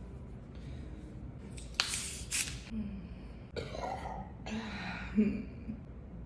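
A woman breathing hard in short, noisy bursts with throat sounds, starting about two seconds in.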